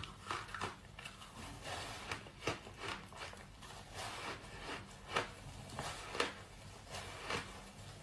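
Chunks of ice coated in matcha powder being bitten and chewed close to the microphone: irregular crunching and cracking, with a few sharper, louder cracks.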